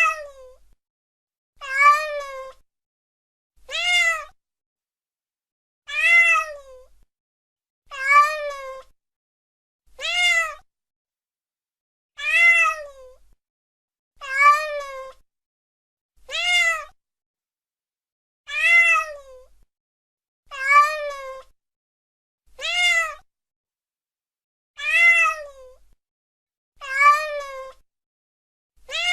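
Domestic cat meowing: the same short meow repeated about every two seconds, each call rising then falling in pitch, with silence between calls.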